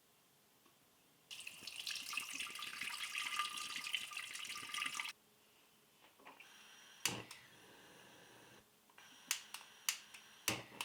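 Water running from a tap for about four seconds, switched on and off abruptly, followed by a few short sharp knocks.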